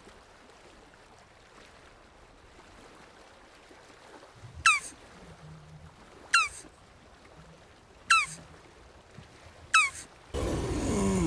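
Jabuti tortoise calling: four short, high calls that fall in pitch, about a second and a half apart, then a loud harsh groan that starts near the end.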